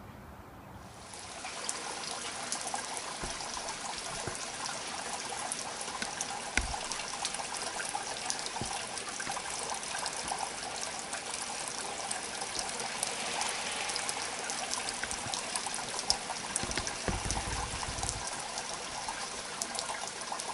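Rain falling on a wet paved driveway, with rainwater running and trickling across it in a steady patter of drops, starting about a second in.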